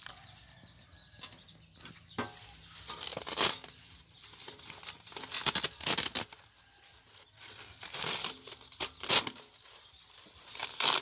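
Layers of a burnt computer circuit board being peeled apart and handled by gloved hands: the stiff, brittle sheets rustle and crackle in several short scraping bursts.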